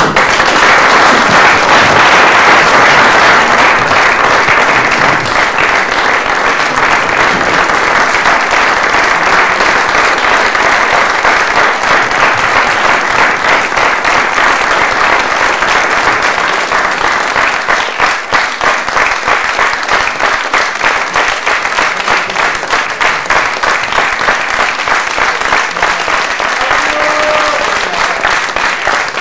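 Theatre audience applauding at the end of a performance, breaking in suddenly and loudly at the start. The clapping stays dense throughout and grows more uneven and pulsing in the second half.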